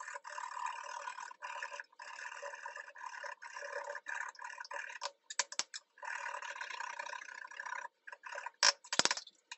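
A carrot being grated by hand on a grater: steady scraping with a few short breaks, then several sharp clicks and knocks near the end, the loudest sounds here.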